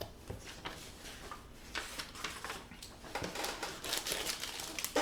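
Handling of packaging in an opened subscription box: light rustling with scattered small clicks and taps, busier in the second half.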